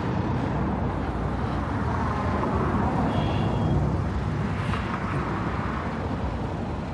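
Road traffic: cars driving past on a city street, a steady rumble of engines and tyres.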